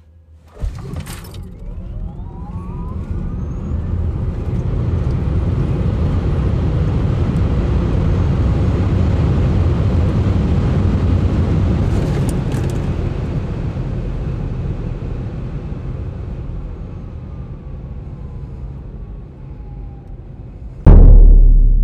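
Cabin sound of a Lucid Air Dream Edition electric sedan on a full-throttle quarter-mile run from a standstill: the electric motors' whine rises in pitch off the launch, and wind and tyre noise build to a peak at about 140 mph, then fall away as the car brakes. Near the end a sudden, very loud low hit cuts in.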